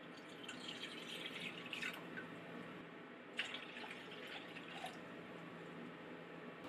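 Water poured from a stainless steel measuring cup into an enamel saucepan, in two pours of about a second and a half each.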